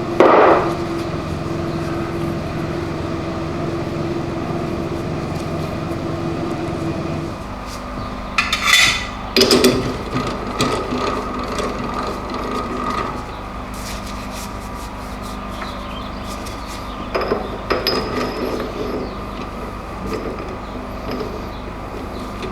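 Workshop handling sounds over a steady machine hum: clunks and scraping of metal parts being handled, a few short clatters. The hum changes to a lower one about seven seconds in.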